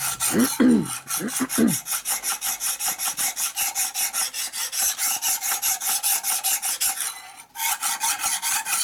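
Fast, even rasping strokes of an abrasive on metal, about seven a second, taking a burr off a flat steel work surface. The strokes pause briefly near the end. A few short low squeaks sound in the first two seconds.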